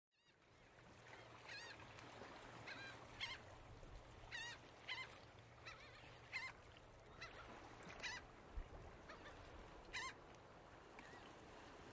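Bird calls: short cries with a wavering pitch, repeated irregularly about once a second over a faint steady hiss. The sound fades in at the start.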